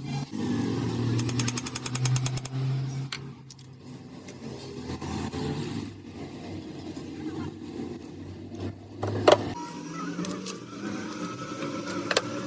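Workshop machinery running with a steady low hum, a fast rattle of clicks about ten a second near the start, and one sharp metallic knock about nine seconds in.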